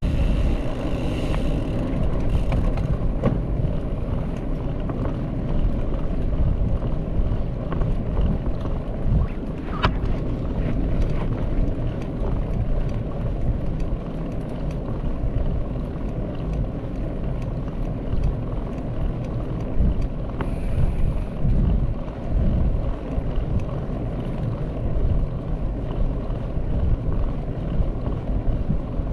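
Wind buffeting the camera microphone with a steady low rumble, typical of a helmet or body camera on a moving mountain bike, with a few faint clicks.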